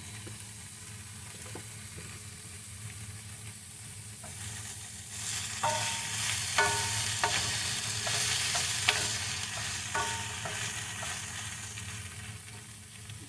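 Vegetables sizzling in a frying pan while a utensil stirs them, scraping and clinking against the pan several times. The sizzle grows louder about four seconds in, over a steady low hum.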